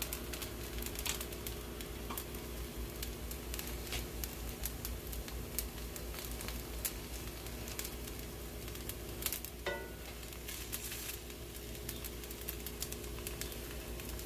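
Porotta dough frying in oil in a hot cast-iron skillet over high flame: a steady sizzle with scattered small pops and crackles.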